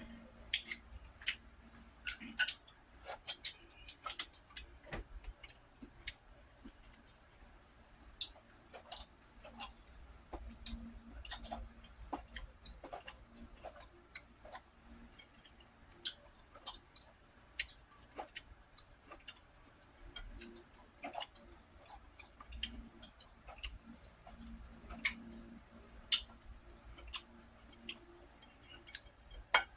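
A person eating close to the microphone: chewing with many sharp, irregular clicks and taps.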